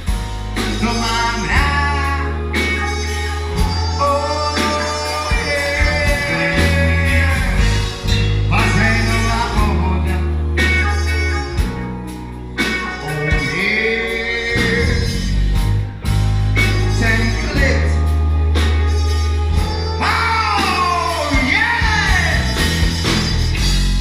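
Live rock band playing a funky song with a singer over a heavy, stepping bass line, guitar and steady drums.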